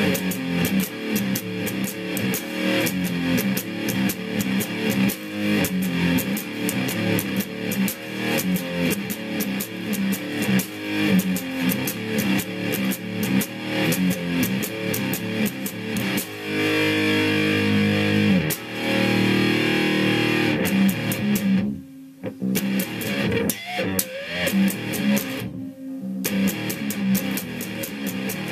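Jackson electric guitar played fast, with rapid picked notes, a chord held for a few seconds about two-thirds through, and two short breaks near the end.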